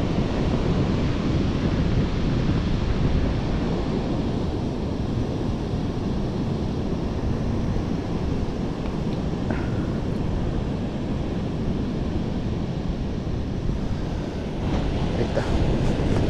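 Steady surf washing on a beach, with wind blowing across the microphone.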